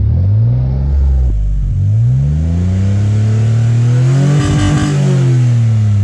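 Fuel-injected engine of a roll-caged off-road buggy revved while standing still: a quick blip, then a slower rev that climbs for about three seconds, rattles briefly at the top and falls back toward idle. It is being revved so the autotune can correct the engine's fuel table as it runs.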